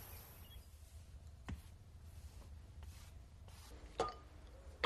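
A paintbrush at work: faint brushing with a few light clicks, then a short ringing knock about four seconds in as the brush is tapped against the water pot.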